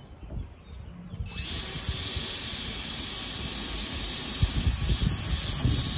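Cordless drill running steadily under load for about five seconds, starting about a second in, as screws are driven to mount a boat hatch on a camper roof; wind rumbles on the microphone underneath.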